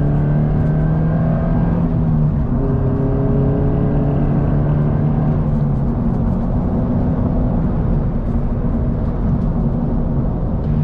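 Subaru BRZ's flat-four engine through a Borla stainless axle-back exhaust, heard inside the cabin, pulling up through the revs. About two seconds in it shifts up with a sudden drop in pitch, climbs again, then levels off into a steady cruise with road noise.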